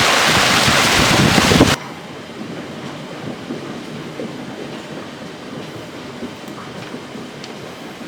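Heavy thunderstorm downpour with wind on the microphone, cutting off abruptly about two seconds in to a quieter steady rain hiss. Under the quieter rain runs a low, uneven rumble with scattered small ticks and drips.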